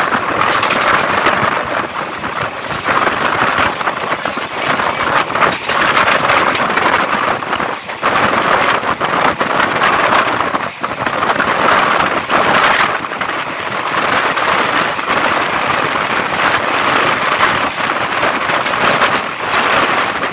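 Freight train wagons rolling past close by: a loud, steady clatter and rumble of steel wheels on the rails, with frequent short clanks.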